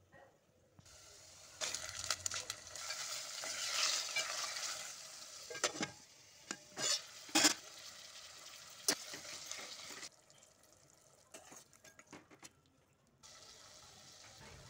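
Chicken pieces frying and sizzling with sliced onions in an aluminium pot, with a spoon stirring and knocking sharply against the pot several times in the middle. The sizzling drops low about ten seconds in and picks up again near the end.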